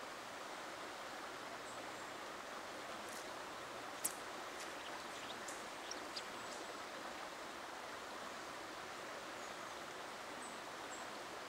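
Steady rush of river water flowing. A handful of sharp clicks comes in the middle, the loudest about four seconds in.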